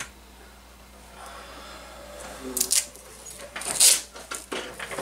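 Hands handling balsa wing parts and tools: a run of sharp clicks and rustles, starting about a second in and loudest just before four seconds.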